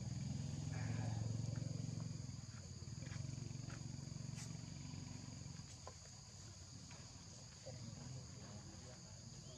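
Steady high insect buzzing over a low rumbling drone that is loudest at first and fades after about five seconds, with a few faint clicks.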